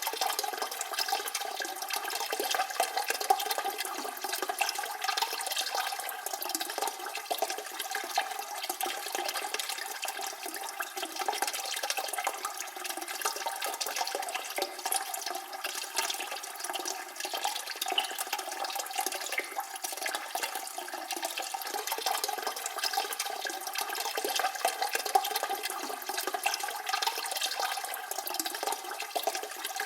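Toilet cistern refilling: water hissing steadily through the fill valve, with a faint whistling tone in the rush.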